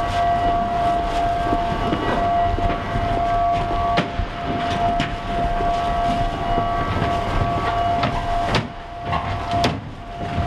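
Steady machinery hum and drone with a whine held at one pitch, from plant equipment running in a reactor building. A few sharp knocks and footsteps cut through it, and it drops a little in loudness near the end.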